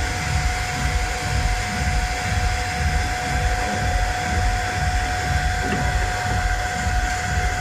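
Steady mechanical drone: a low rumble with a constant high whine over it and a hiss.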